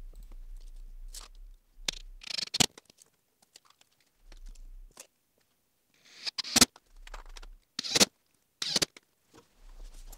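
Wooden fence boards being handled and set into place inside a planter box: scattered knocks and short scrapes with quiet gaps between them, the loudest around two seconds in and again near six to nine seconds.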